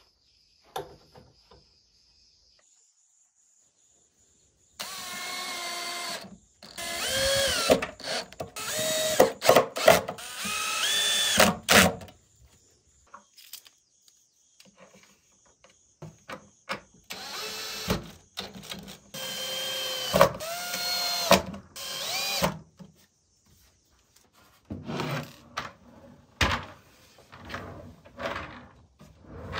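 Cordless drill driving screws to fix metal caster wheels to a wooden cabinet. It runs in two spells of short bursts, the motor pitch rising and falling as each screw goes in. Near the end come a few short knocks.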